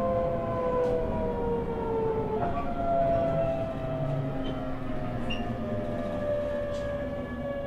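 Toyo Denki GTO-VVVF inverter and traction motors of a JR E127-0 series EMU whining under regenerative braking, heard from inside the car over the running rumble. The whine falls in pitch as the train slows, jumps back up about two and a half seconds in as the inverter changes mode, then falls again and fades near the end.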